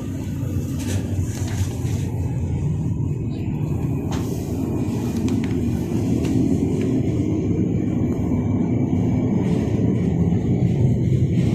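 Twin jet engines of an Airbus A320 at takeoff power during its takeoff roll: a steady low rumble that grows slowly louder.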